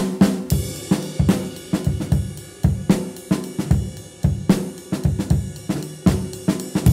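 Background music: a drum-kit groove with hi-hat, snare and bass drum playing a steady beat.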